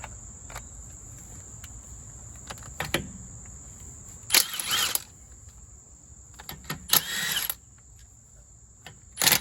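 Three short bursts of a cordless power tool spinning already-loosened lug nuts off a car wheel, about four, seven and nine seconds in. A steady high insect trill runs underneath.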